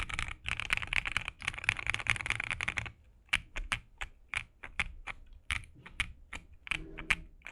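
Mechanical keyboard fitted with stock, unlubed Prevail Epsilon linear switches being typed on: a fast, continuous run of keystrokes that, about three seconds in, slows to single key presses a few tenths of a second apart.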